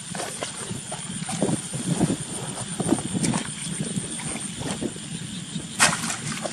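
Irregular splashing and sloshing of water with scattered knocks, and one sharper, louder splash about six seconds in.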